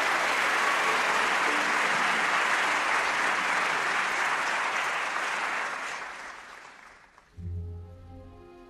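Audience applause in a concert hall, steady and then dying away around the six-second mark. About a second and a half before the end, the chamber orchestra's strings begin the aria's introduction with low sustained notes.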